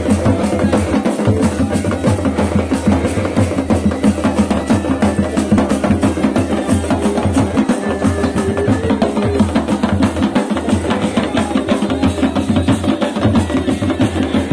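Kumaoni chholiya folk band playing: dhol and damau drums beating a fast, unbroken rhythm over the steady drone and melody of masakbeen bagpipes.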